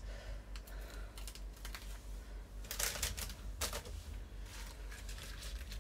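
Spring greens being torn apart by hand: irregular, fairly faint crisp snaps and rustles of the leaves and stalks.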